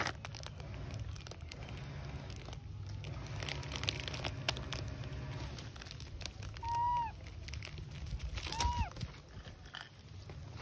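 Plastic snack packet crinkling and rustling as a young macaque handles it, with two short high-pitched calls about two seconds apart, each dropping in pitch at the end.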